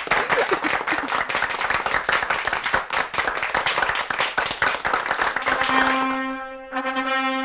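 Crowd applause with many hands clapping. About six seconds in, brass instruments come in on steady held notes as the applause fades.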